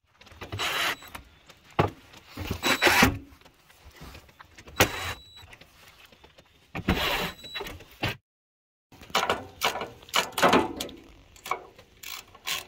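Cordless DeWalt impact driver running in several short bursts, spinning nuts onto the fan motor's mounting studs on a condenser fan grille. Near the end comes a quick run of clicks from a hand ratchet tightening the same nuts.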